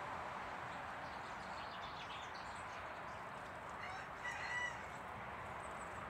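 A fowl calls once, a short pitched call about four seconds in, over a steady background hiss. Faint high chirps come a couple of seconds earlier.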